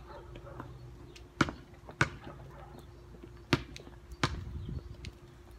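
Basketball bouncing on pavement: four sharp thumps, two about half a second apart, then two more a second and a half later, also close together.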